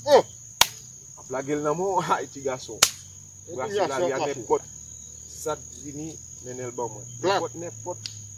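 Insects calling in one steady high-pitched tone throughout, under bursts of men's voices talking. Two sharp clicks ring out, near the start and about three seconds in.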